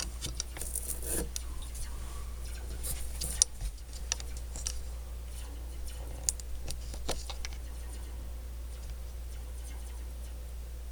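Scattered light clicks and taps, several in the first few seconds and fewer later, over a steady low hum.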